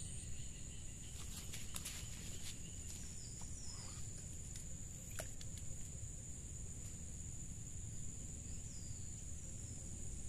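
Steady, high-pitched insect chorus, with a few sharp clicks in the first half and short falling chirps about three and a half and nine seconds in.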